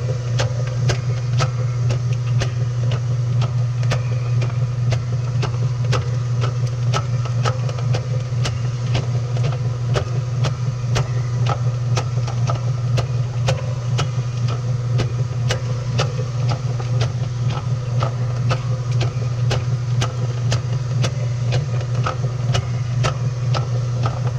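Washing machine running, heard from inside the drum: a steady low motor hum with evenly spaced knocks, about two or three a second, as the drum turns.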